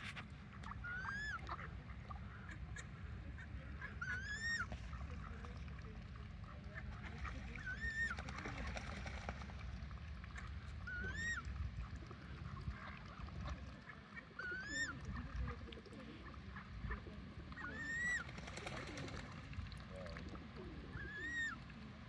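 Duck calling: a short, high, whistle-like call that rises and falls, repeated evenly about every three and a half seconds, seven times in all, over a low steady rumble.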